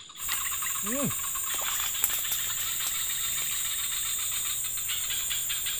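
Dense chorus of insects, a steady, finely pulsing high-pitched buzz that comes in abruptly just after the start. A single short spoken word is heard about a second in.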